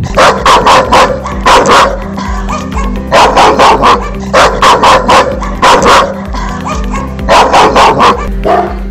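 Pit bull barking loudly in rapid clusters of three or four barks, with short pauses between the clusters.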